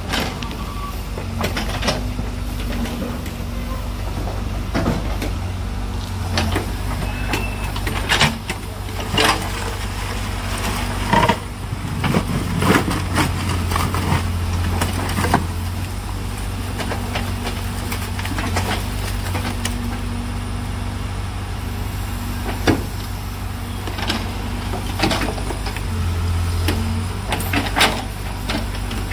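Backhoe loader's diesel engine running steadily, working harder in spells around the middle and near the end, with repeated sharp knocks and clanks from the bucket handling refuse into a dump truck.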